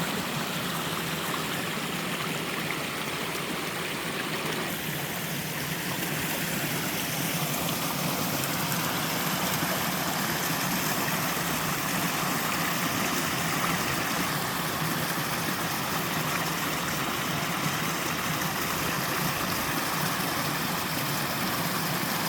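Water of a three-tiered waterfall rushing and splashing steadily down a mountain stream, with the tone shifting slightly about five seconds in and again near fifteen seconds.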